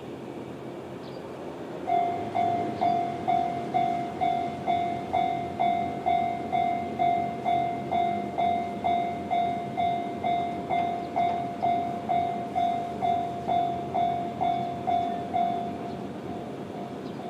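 Japanese railway level-crossing alarm with the JR standard electronic bell sound, dinging at a steady rate of about two strikes a second. It starts about two seconds in and stops shortly before the end, leaving a fainter steady tone.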